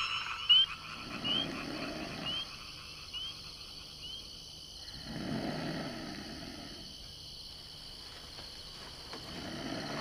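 Night animal sounds: a deep, frog-like croak three times, about four seconds apart, with a run of short high chirps that fades out over the first few seconds.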